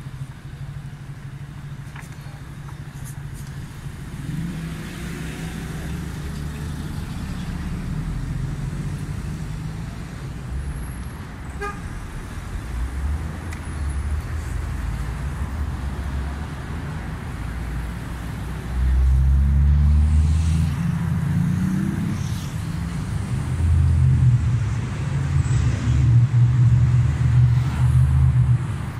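Street traffic: motor vehicle engines rumbling low and accelerating as they pass, loudest in two spells in the second half. A short horn toot sounds about twelve seconds in.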